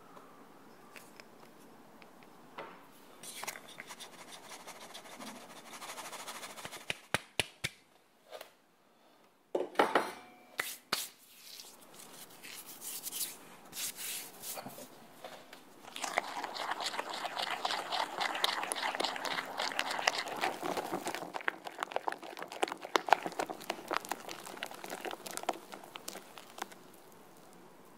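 Flour and baking powder sifted through a stainless steel sieve into a glass bowl, a soft shaking hiss broken by a quick run of sharp taps on the sieve. For the second half, cupcake batter is mixed in the glass bowl with a dense, scratchy scraping.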